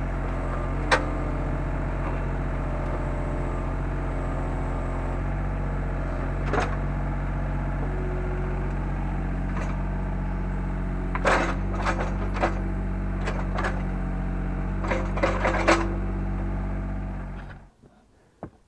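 Takeuchi TB125 mini excavator's diesel engine running steadily while digging post holes, with several sharp knocks and clatters, most of them bunched in the second half. The engine then stops near the end.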